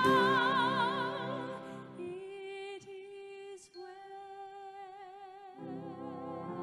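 A female vocalist singing with a brass band: a held note with vibrato fades away over the first two seconds, a quiet sustained note follows, and the band comes back in with fuller, lower notes near the end.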